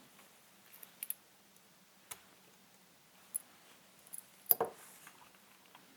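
Small clicks and ticks of a Panasonic LX7 compact camera's parts being handled during disassembly. They are faint and scattered, a few over several seconds, with the loudest pair about four and a half seconds in.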